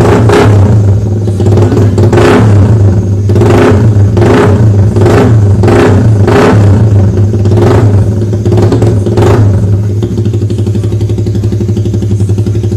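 Suzuki Raider 150's single-cylinder four-stroke engine through a loud aftermarket CHA exhaust, blipped in a quick rhythm of short sharp revs about one every 0.7 s for some nine seconds, then settling to a steady idle.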